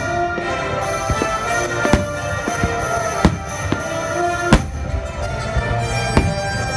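Fireworks going off in single sharp bangs about a second apart, the loudest about four and a half seconds in, over music played for the display.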